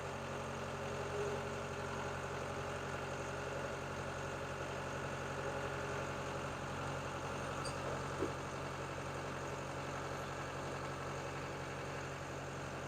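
Caterpillar 287B skid steer's turbocharged diesel engine idling steadily.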